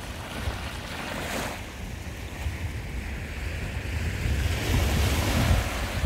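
Small waves washing onto a sandy beach, with wind buffeting the microphone as a low rumble; the wash grows a little louder near the end.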